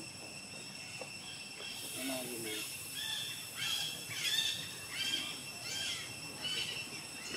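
Evening insects trilling in a steady high drone, with a bird calling in a run of short chirping notes, about two a second, from about two seconds in to near the end.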